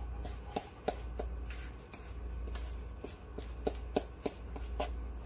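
A fork clicking and scraping against a stainless steel mixing bowl as softened butter is mashed and stirred. Irregular sharp clicks come about twice a second over a steady low hum.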